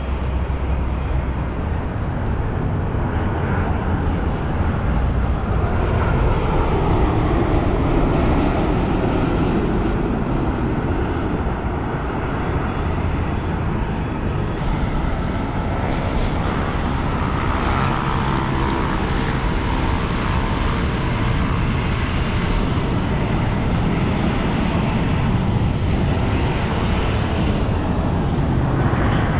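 Jet airliner engines running steadily, their pitch shifting slowly up and down.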